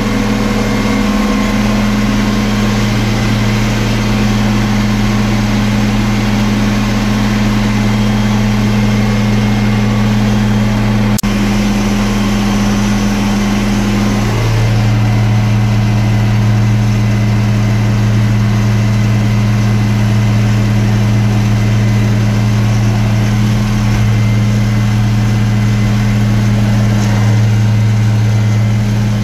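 Tractor diesel engine, an International Harvester 1256, running steadily at working speed, heard from inside the cab. There is a slight change in its note about a third of the way in.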